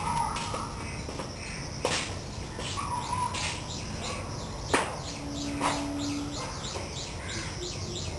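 Small birds chirping in quick repeated notes that run into a fast twittering series in the second half, over a steady low background hum. A few sharp clicks stand out, the loudest about five seconds in.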